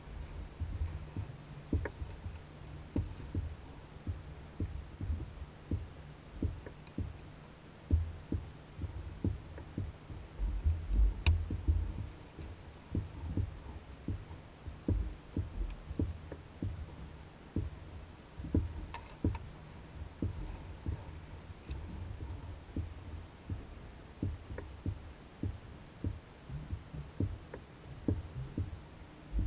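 Small waves knocking against the hull of an Old Town Guide 119 canoe as it bobs: a run of irregular low thumps, about one or two a second with some quick clusters, over a steady low hum.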